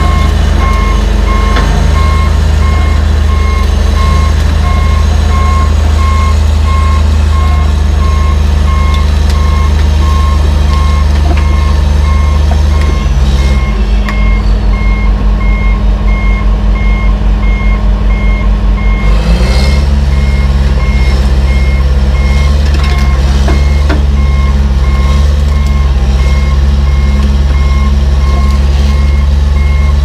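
Bulldozer backup alarm beeping steadily on and off while the crawler dozer reverses onto a lowbed trailer, over its diesel engine running. About halfway through the engine note drops and throbs for several seconds, then picks up again.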